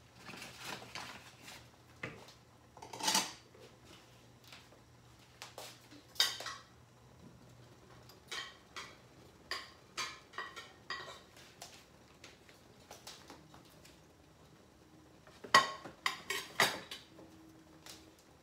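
Kitchenware and utensils clinking and clattering in scattered knocks and short runs. The loudest come about three seconds in, about six seconds in, and in a cluster near the end.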